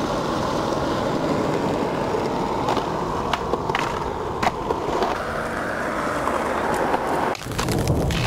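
Skateboard wheels rolling steadily over concrete, with several sharp clacks of the board a few seconds in.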